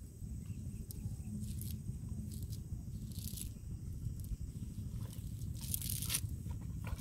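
Nylon cast net rustling and scraping over dry grass as it is gathered up and lifted, in a few short scratchy sounds, the loudest about six seconds in. Under it, a steady low rumble of wind on the microphone.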